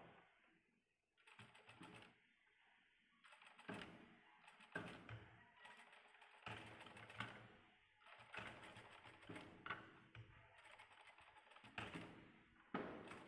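Industrial single-needle lockstitch sewing machine stitching fabric in short runs of rapid needle clatter, each about a second long, stopping and starting several times.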